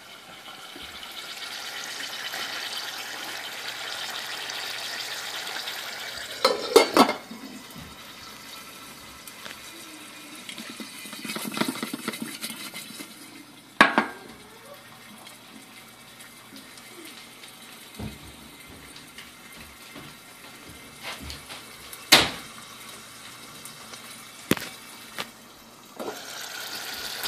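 Saucepan of chicken simmering on a wood stove with a steady hiss, broken by sharp clanks of the metal pan and its glass lid being handled. The clanks come as a quick cluster about seven seconds in, then singly, with a softer click near the end.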